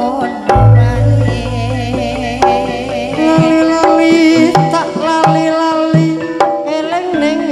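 Live Javanese campursari music: hand-drum strokes from the kendang under a wavering, pitched melody line. A deep held bass note sounds for the first couple of seconds.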